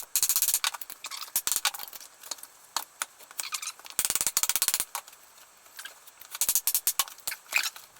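Hand saw cutting green wood in short strokes, each stroke a burst of rapid ticking as the teeth bite.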